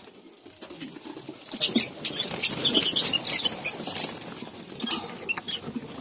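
Flock of lovebirds chattering with many short, high-pitched chirps, some in quick runs, starting about a second and a half in.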